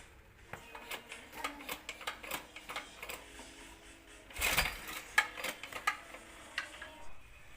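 Scattered metallic clicks and knocks from hand work on a small engine, with a louder scraping rasp about four and a half seconds in.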